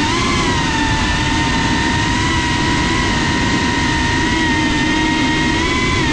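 Brushless motors and propellers of a CineLog35 cinewhoop FPV drone, heard from the GoPro mounted on it: a loud, steady whine holding nearly one pitch while cruising, over a rushing noise of prop wash and wind. The pitch lifts slightly at the start and dips briefly near the end as the throttle changes.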